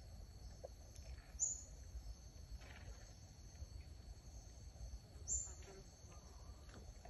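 Steady high drone of insects, with two short, sharp high chirps about four seconds apart over a low rumble.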